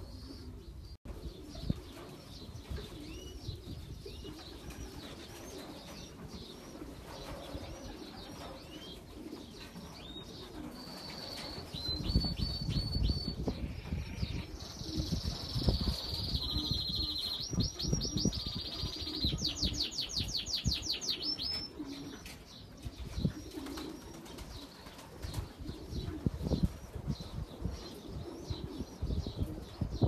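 Racing pigeons in a loft cooing, with wing flaps and rustling that grow louder about twelve seconds in. Short high-pitched bird chirps run throughout, with a spell of rapid high trills in the middle.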